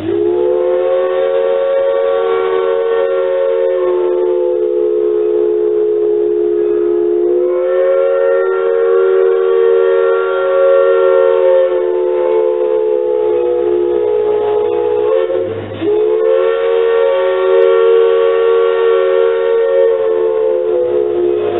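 Steam locomotive whistle of L&N 152 blowing loudly from inside the cab, a chord of three notes held in long blasts. Its pitch rises slightly about seven seconds in, and it breaks off briefly about fifteen seconds in before sounding again.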